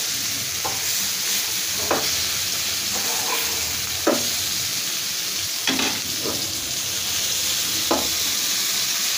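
Fish frying in hot oil in a frying pan, sizzling steadily, with a metal spatula scraping and tapping against the pan about seven times as the pieces are turned, the loudest stroke about four seconds in.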